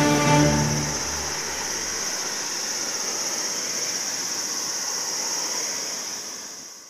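Boeing 787 airliner with Rolls-Royce Trent 1000 engines flying overhead on final approach with gear down: a steady jet noise with a constant high-pitched hiss. Background music fades out in the first second or two, and the whole sound fades away at the end.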